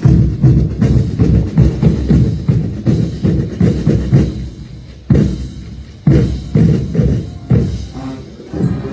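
Marching band drum line of snare and bass drums playing a dense, driving cadence, broken by two sudden accented hits about five and six seconds in.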